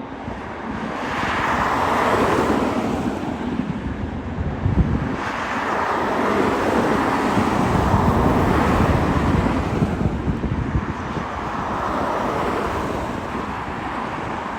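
Jet airliner engine noise from an aircraft passing, a continuous rushing sound with slowly shifting tone that grows louder about a second in and eases slightly after about ten seconds, with wind on the microphone.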